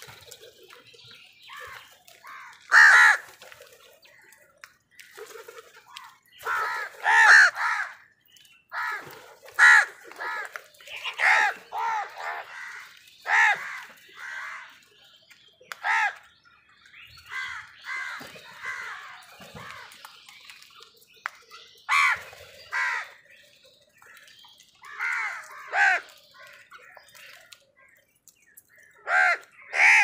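A flock of house crows cawing: harsh calls come one to three at a time every second or two, some loud and close, others fainter in the background.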